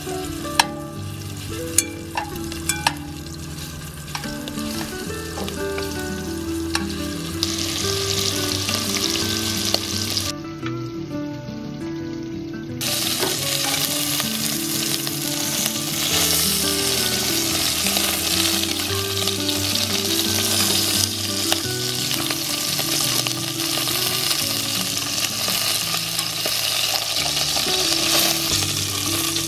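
Squirrel meat sizzling as it fries in an enamel pot on a camp stove, with metal tongs clicking against the pot a few times in the first few seconds as pieces go in and are turned. The sizzle thickens after about seven seconds and grows louder again around thirteen seconds.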